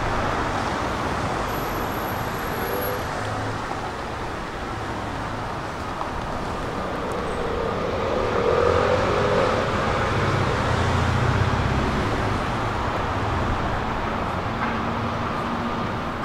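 Street traffic: a steady wash of road noise with low engine rumble, swelling as a vehicle passes close about eight to twelve seconds in.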